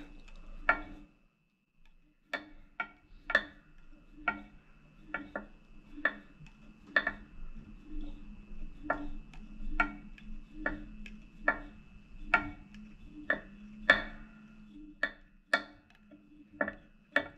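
Light, sharp ticks about two a second, unevenly spaced, from the fly-tying tools as floss is wrapped onto a hook held in a metal vise. A short pause about a second in.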